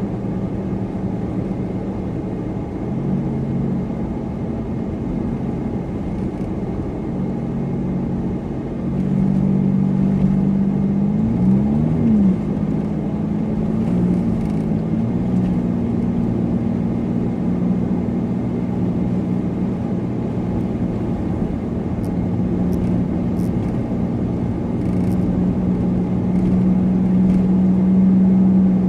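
Supercharged car's engine running at a steady cruise over continuous road and tyre noise while driving. About 11 seconds in, the engine pitch briefly rises and falls, then settles into a steady tone again.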